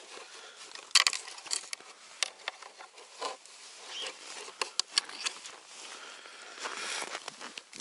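Scattered clicks, taps and rustling as a black plastic engine cover is handled and turned over in bare hands, with a sharp knock about a second in.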